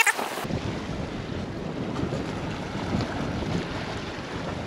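Steady wind buffeting the microphone over the wash of surf against the jetty rocks, with a single sharp click at the very start.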